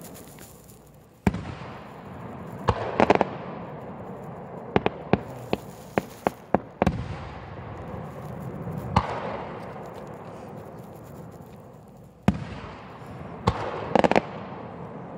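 Aerial firework shells bursting: a sharp boom a little over a second in, then a string of pops and cracks. Another boom comes near the end, followed by a quick cluster of pops.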